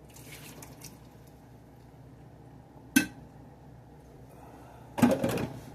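A single sharp click, then a brief clatter of hard objects knocking and clinking together near the end.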